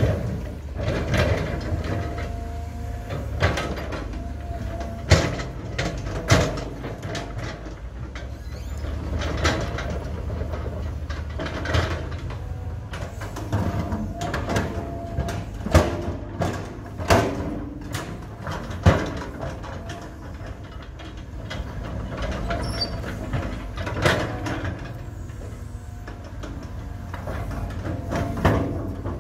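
Caterpillar 320 hydraulic excavator working: its diesel engine runs in a steady low rumble with a held hum, while the steel bucket digs, scrapes and knocks against rocky soil in irregular sharp clanks.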